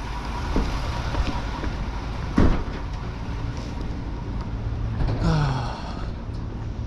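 A truck door shuts once with a single loud thump, about two and a half seconds in, over a steady low engine idle.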